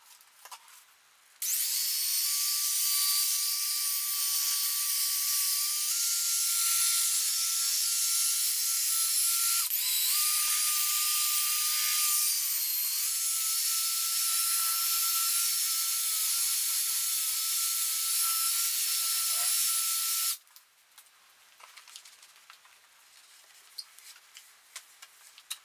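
Cordless drill spinning a 3-inch foam polishing pad against a car's door mirror. It runs with a steady high whine that steps up in pitch a few times and cuts out briefly about ten seconds in. It stops about twenty seconds in.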